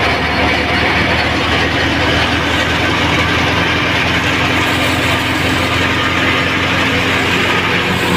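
Wheat thresher running under load, powered through the PTO by a Fiat 480 diesel tractor: a loud, steady mechanical noise of the threshing drum and fan with the low, even hum of the engine beneath it.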